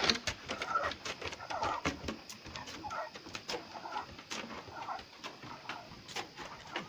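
A 13-year-old pit bull breathing with difficulty, a noisy sound with each breath about once a second, the sign of his breathing problem.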